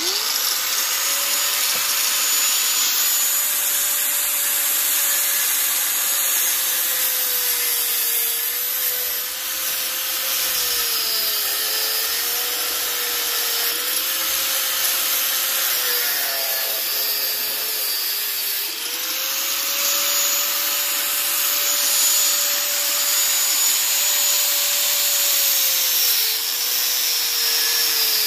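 Corded angle grinder switched on and cutting into metal. A steady motor whine with a harsh grinding hiss over it; the whine drops in pitch as the disc bites under load, between about 8 and 18 seconds in and again near the end, and rises back when the load comes off.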